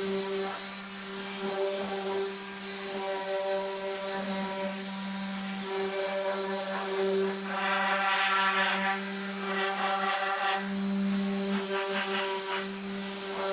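Electric sander running on cherry wood: a steady motor hum, with the rasp of the abrasive swelling and fading as the pad is worked over the wood.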